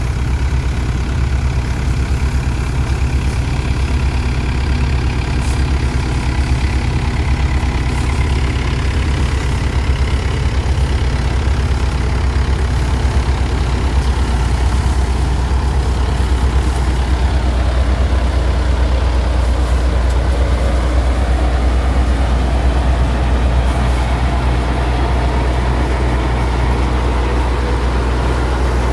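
Mahindra Yuvo 585 DI tractor's diesel engine running steadily, driving a peanut thresher that is being fed with peanut plants. The thresher's mechanical noise grows louder in the second half.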